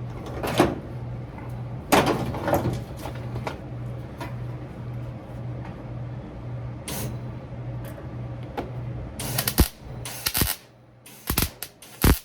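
Scattered knocks and clanks over a steady low hum that pulses about twice a second; the knocks come closer together near the end, and the hum stops about ten seconds in.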